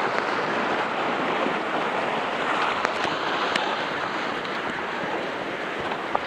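Fast-flowing river rushing over rocks: a steady wash of water noise, with a few faint ticks.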